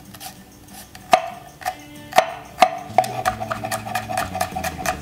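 Chef's knife chopping a garlic clove on a wooden cutting board: a few separate chops, then a quick, even run of about six chops a second over the last two seconds.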